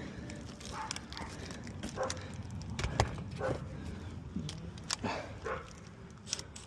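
Scattered clicks and light metal taps as screws are fastened into the blower motor mounting of an HVAC package unit, with a few faint, short voice-like sounds between them.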